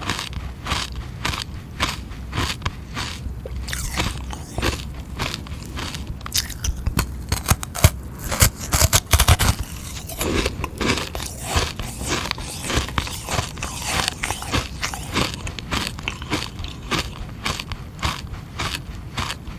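Close-up crunching and chewing of hard frozen sugar-water ice: a steady run of sharp, crackling bites, a couple a second, growing louder and denser for a few seconds about halfway through.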